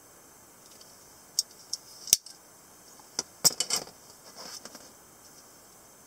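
Metal clicks and snaps from an AK-47 'CCCP' semi-automatic folding pocket knife as its steel mechanism is worked by hand to fold the blade. A few light clicks, a loud snap about two seconds in, a quick run of clicks about a second later, then a softer scrape.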